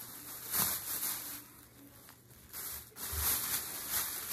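Plastic shopping bag crinkling and rustling as it is handled, in uneven rustles with short pauses between them.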